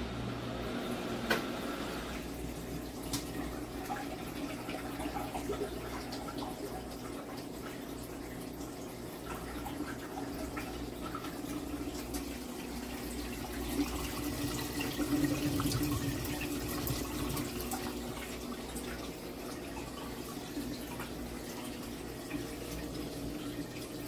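Black+Decker portable top-load washer running, with water churning in the tub over a steady low motor hum. The sound swells briefly about two-thirds of the way through.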